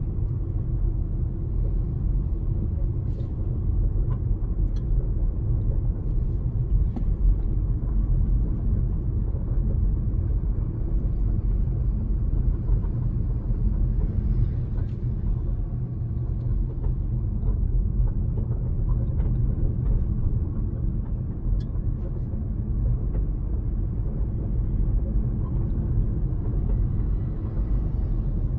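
Car driving along a road: a steady low rumble of engine and tyre noise, with a few faint knocks.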